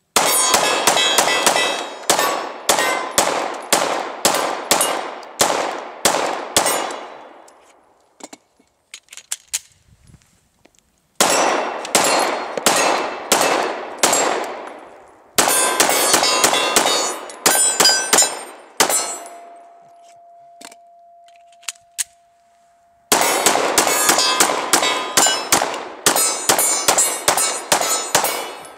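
Rapid strings of 9mm pistol shots from a Glock 19 Gen 4, about two shots a second, with steel targets clanging and ringing after the hits. Four strings, separated by short pauses.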